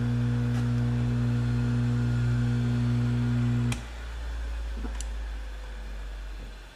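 Tecomec FL-136 chain grinder's electric motor running free with a steady hum, switched off with a click a little over three and a half seconds in; the grinding wheel then coasts down with a fading low rumble that stops near the end.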